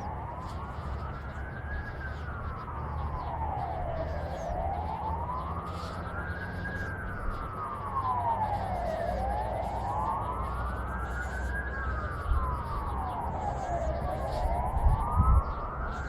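A wailing siren rising and falling slowly, about once every five seconds, over a steady low rumble, with a few low thumps near the end.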